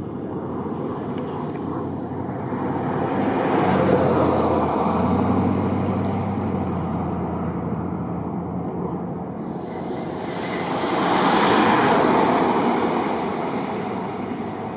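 Road traffic passing close by: two vehicles go by about eight seconds apart, each swelling up and fading away, over a steady rumble, the first with a low engine hum.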